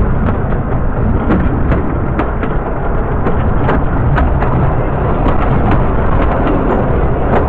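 Narrow-gauge railway carriage in motion: a steady loud rumble from the wheels and running gear, with frequent irregular clicks and knocks from the rails, and wind buffeting the microphone.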